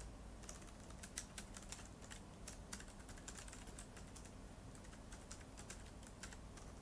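Typing on a keyboard: quick, irregular, faint key clicks, several a second, coming in bunches.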